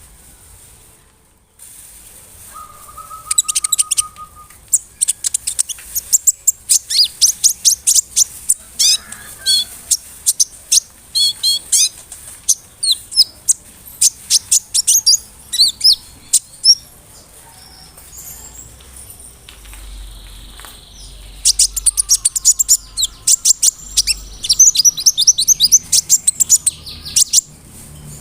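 Konin (kolibri ninja), a small sunbird, singing loud, rapid runs of high, thin chirps and trills in two long bouts, with a pause of a few seconds in the middle.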